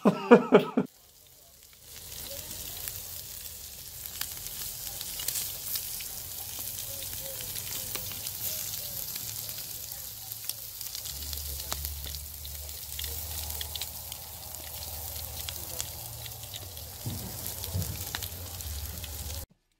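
Bacon, sausages and chicken sizzling in aluminium foil trays over a charcoal barbecue grill: a steady hiss with scattered crackles, starting about two seconds in.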